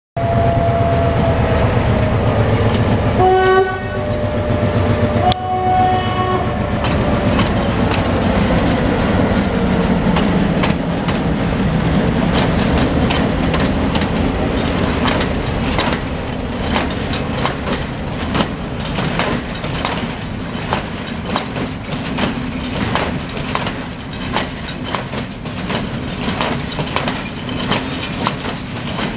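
Henschel M6 diesel locomotive pulling away under load with an express train, its engine running hard. Two horn blasts sound about 3 and 5 seconds in, the second one longer. Later, as the coaches pass, their wheels clack over rail joints and points.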